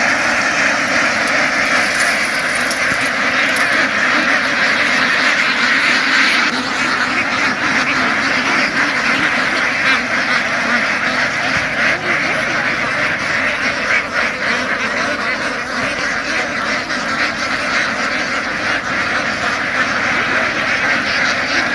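Many ducks quacking at once, a steady, dense chorus of overlapping calls.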